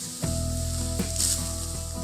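Music with held tones and a regular beat, over a high hissing, rustling noise.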